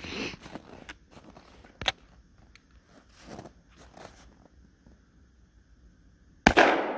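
Rustling handling noises and a single sharp click, then near the end one loud shotgun blast from a 2 3/4-inch buckshot load, its echo trailing off slowly.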